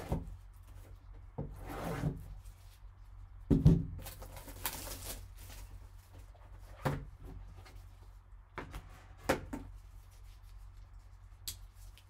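Cardboard hockey card box and its foil pack being handled and opened by gloved hands: scattered rustling, scraping and light taps over a low hum, with a sharp knock about three and a half seconds in and a short tearing rustle just after it.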